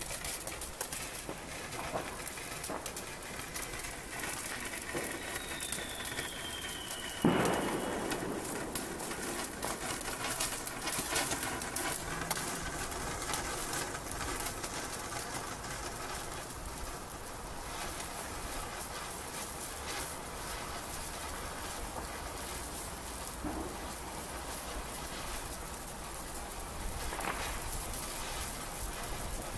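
Panda Cuckoo Cuckoo firework fountain burning, its spray of sparks giving a steady crackling hiss like rain. About five seconds in a whistle falls in pitch, and it ends in one loud crack a couple of seconds later; a few fainter pops follow.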